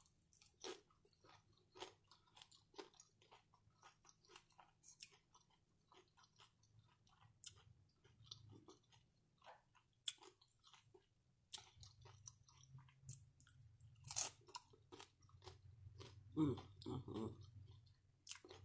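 Faint chewing of cheesy tortilla-chip nachos: scattered soft crunches and clicks of the chips being bitten and chewed, with a few louder crunches in the second half.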